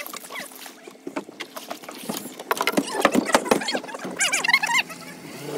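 A large spoonbill (paddlefish) dragged over the gunwale and flopping on the boat's deck, giving a run of irregular knocks, slaps and thumps against the hull.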